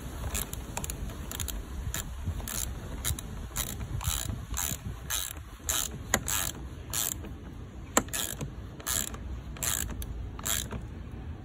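Socket ratchet clicking in short, repeated strokes as a 10 mm nut on a car battery terminal clamp is tightened, with two sharper knocks about six and eight seconds in.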